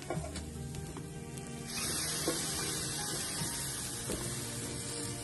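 Shrimp sizzling on a hot gas-fired grill pan as tongs turn them; about two seconds in, a loud, even sizzling hiss starts abruptly and keeps going.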